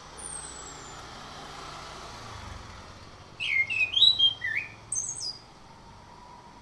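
Chestnut-capped thrush (Anis Kembang) singing: a thin, high falling whistle near the start, then about two seconds in the middle of a loud phrase of quick, varied, swooping notes, over a steady background hiss.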